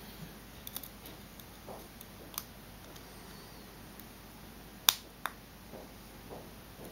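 Scattered small clicks and taps of a screwdriver and a plastic plug being handled as a wire is fastened in a plug terminal, with one sharp click about five seconds in and a smaller one just after.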